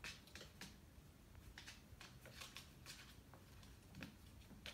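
Faint, irregular light taps and scratches: a tuxedo kitten's paws and claws scrabbling on a hardwood floor as it bats a small toy along.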